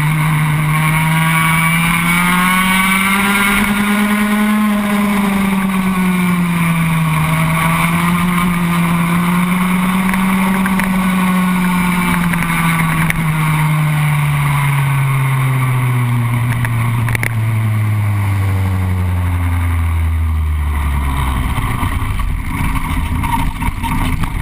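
Racing kart's engine heard from onboard at speed, its pitch rising and falling as the throttle comes on and off. About halfway through the note drops steadily for several seconds to a low, slow running note as the kart slows down.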